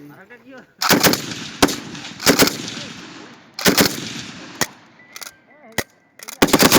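A 7.62 mm light machine gun firing several short bursts of a few rounds, with single shots between them. Each burst trails off in an echo.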